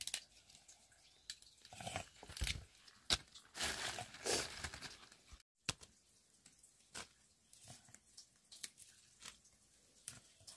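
Fresh green vegetable stems snapped and leaves stripped by hand while the vegetables are picked over: irregular crisp snaps and rustling, busiest in the middle.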